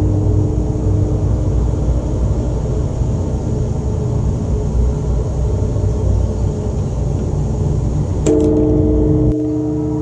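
A low steady rumbling drone under the ringing of a large temple bell. The bell's several steady tones fade over the first seconds; about eight seconds in the bell is struck again and rings on, and about a second later the low rumble cuts off abruptly.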